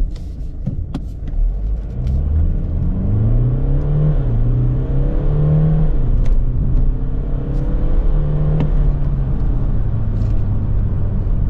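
BMW 125d's twin-turbo 2.0-litre four-cylinder diesel engine heard from inside the cabin under full-throttle acceleration from a standstill. Its pitch climbs through each gear and drops back at each automatic upshift, then holds steadier near the end.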